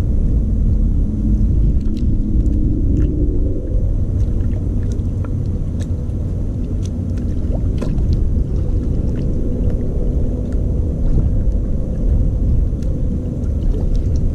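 A steady low engine drone, as from a motor running nearby, with a level hum and a few faint scattered ticks over it.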